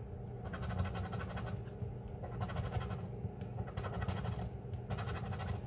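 A large silver coin scraping the scratch-off coating from a lottery ticket on a table, in short bouts of rapid rasping strokes with brief pauses between them.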